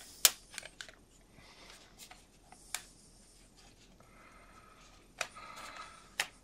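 Handling noise from a laser-cut wooden model wagon body held together with an elastic band: sharp clicks and taps as the parts are turned over in the hands, the loudest just after the start, with stretches of soft rubbing between.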